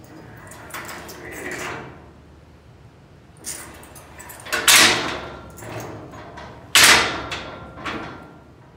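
Steel squeeze chute head gate doors being worked by a hand lever and cable: a scraping, sliding stretch as the linkage moves, then two loud metal clangs about two seconds apart with a short ring after each, and a few lighter knocks.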